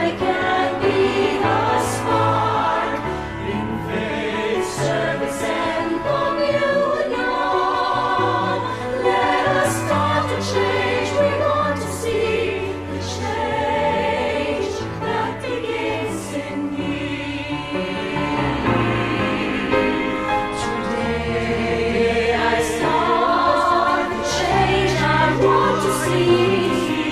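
Choir singing an inspirational song in English over instrumental backing with a steady bass line, the words including 'I can be the spark' and 'the change that begins in me'.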